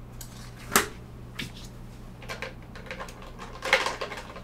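Handling sounds as a sheet of paper is brought over and laid on a desk mat: a sharp tap about a second in, a few fainter knocks, and a short paper rustle near the end, over a steady low hum.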